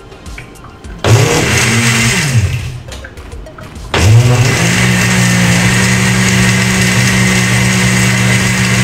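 Countertop blender mixing a thick ice-cream protein shake. It runs in a short pulse about a second in, spinning up and then winding down, and is switched on again about four seconds in, then runs steadily.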